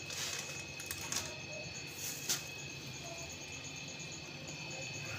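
A few short rustling and knocking sounds from handling food and containers at a kitchen bowl, the sharpest a little over two seconds in, over a steady faint high-pitched background whine.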